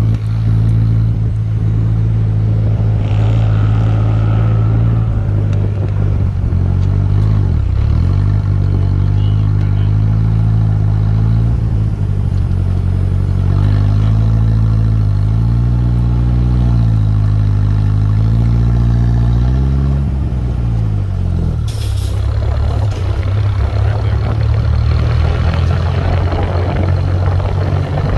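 A 1996 Ford Ranger's 2.3 L four-cylinder engine running steadily, its speed dipping and recovering several times. The owners trace the noise and the high idle to a vacuum leak at a failed PCV valve.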